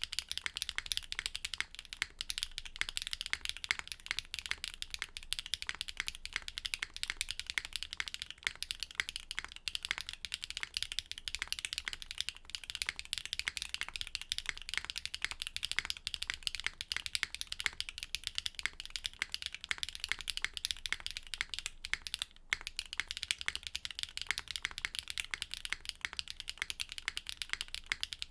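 Fast, continuous typing on a Neo65 mechanical keyboard with a carbon-fibre plate and Keygeek PA keycaps: a dense stream of key clacks, with a brief pause about 22 seconds in.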